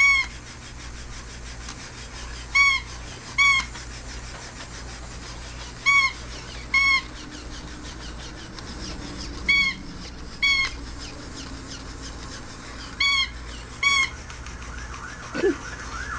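Battery-operated plush toy cat sounding short, high electronic calls in pairs, a new pair about every three and a half seconds.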